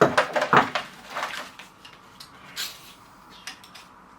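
Small metal hand tools clinking and clattering as they are handled and set down, with a quick cluster of knocks in the first second and a few more later.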